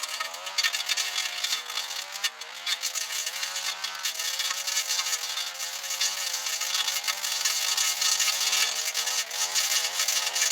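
Small two-stroke engine of a handheld power tool running under work, its pitch wavering up and down with the throttle and load.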